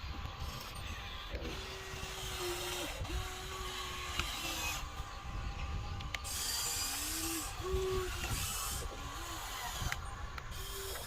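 Small geared electric motors of a radio-controlled construction model whining in short runs of about a second each, several times over, with a rough mechanical rattle underneath.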